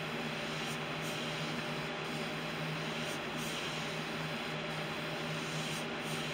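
Iwata airbrush hissing steadily as it sprays pink paint at low pressure, about 20 psi, with a steady low hum underneath.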